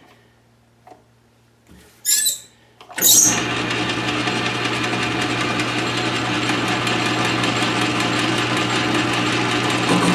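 South Bend 13-inch lathe switched on about three seconds in and running steadily with a constant hum and the whir of its drive and gearing, the tailstock ram turning in the chuck for a light skim cut. A brief scrape or click comes just before it starts.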